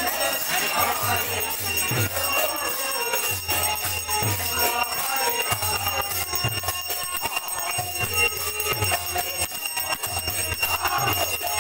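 Devotional kirtan music: a brass hand bell and metal cymbals ringing continuously over a harmonium, with a khol drum beating a steady rhythm.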